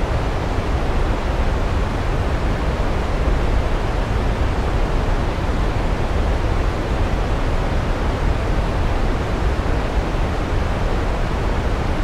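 Waterfall rushing steadily: an even, unbroken wash of falling-water noise, heaviest in the low end, with no changes or breaks.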